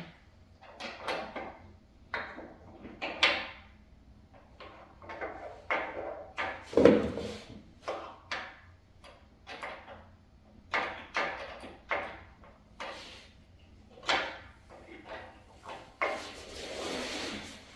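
Allen key being worked on a bolt in a wooden bed frame: irregular clicks, knocks and scrapes of metal on wood and metal, with a longer scrape near the end.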